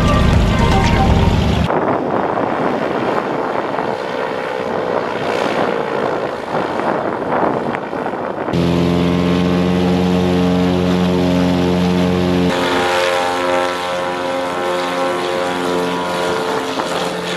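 Britten-Norman Islander's twin piston engines and propellers running on the runway: a steady drone with a stack of even pitched tones. The tone and loudness change abruptly a few times.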